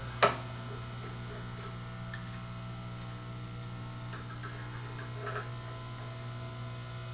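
Steady low electrical hum with one sharp click just after the start, then a few light, scattered metallic ticks.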